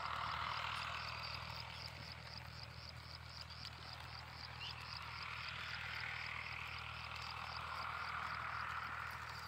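Outdoor chorus of calling insects and frogs: a high, even chirp repeating about three times a second over a buzzing chorus that swells and fades twice.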